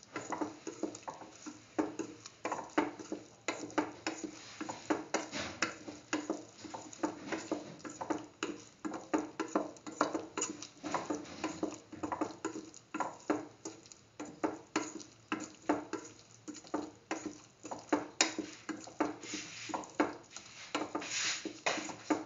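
A spatula stirring soy chunks through a thick spice paste in a pan, scraping and knocking against the pan bottom in an irregular run of short strokes, two or three a second.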